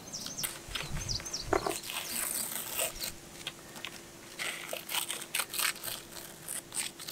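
Blue tape being picked, scraped and torn out of the corner of a rammed earth wall by gloved hands with a small tool: a run of scratching, scraping and crinkling ticks, with a couple of dull knocks about a second in. A faint steady hum sits underneath from about half a second in.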